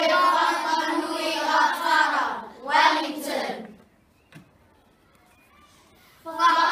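A group of children singing together in unison, with long held notes: one long phrase, then a shorter one, then a pause of about two seconds before the voices come in again near the end.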